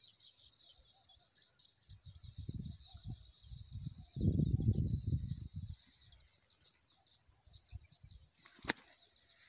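Birds chirping steadily in high, wavering calls. About two seconds in and again about four seconds in, there are two stretches of low, muffled rumbling, and a single sharp click comes near the end.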